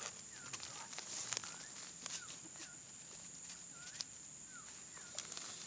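Faint outdoor animal sounds: a short chirp repeated roughly twice a second over a steady high-pitched insect drone, with a few faint clicks.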